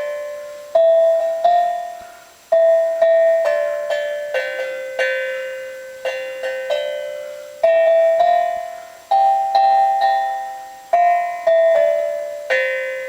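Wooden slit drum (tongue drum) played with mallets: a slow melody of single struck notes, each ringing and dying away before the next.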